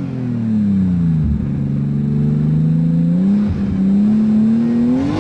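Modified Nissan Skyline R33 GTS-T's turbocharged straight-six engine revving: the engine note falls away over the first second, holds low and steady, then steps up and climbs again near the end.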